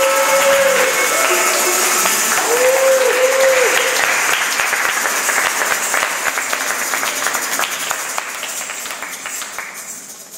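Audience applauding and cheering as the music ends, with a few whoops in the first four seconds; the applause then fades out.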